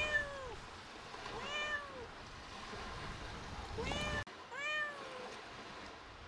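A cat meowing repeatedly: four short meows, each rising then falling in pitch, a second or two apart.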